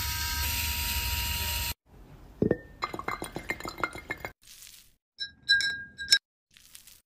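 A metal bar spoon clinking three or four times against a drinking glass of coconut water as it is stirred, near the end. Before it, a steady held tone stops about two seconds in, then a thump and a quick run of small ticks follow.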